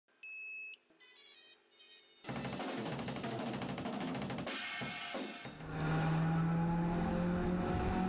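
Intro music: a few short electronic tones, then a drum-kit beat with cymbals from about two seconds in, settling into a held low chord near the end.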